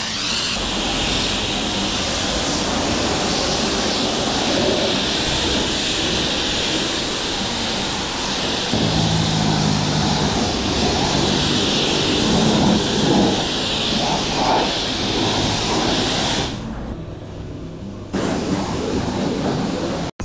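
High-pressure washer lance at a car wash spraying water onto a car, a loud steady hiss over a low rumble. The spray cuts off suddenly about three-quarters of the way through, leaving a quieter low sound.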